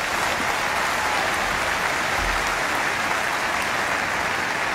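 A large audience applauding, an even, sustained round of clapping.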